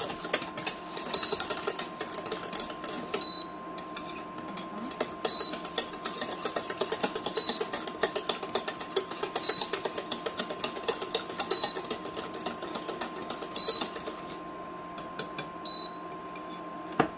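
Wire whisk clicking and rattling rapidly against a small stainless steel saucepan as a strawberry syrup is whisked, the clicking thinning out near the end. A short high beep repeats about every two seconds, typical of an induction hob that is switched on with no pan on it.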